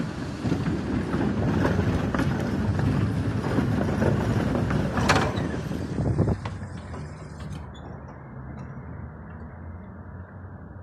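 Konstal 105Na tram rolling past at close range, its wheels rumbling and clicking on the rails, with one brief sharp sound about five seconds in. The noise drops off after six and a half seconds or so as the tram pulls away.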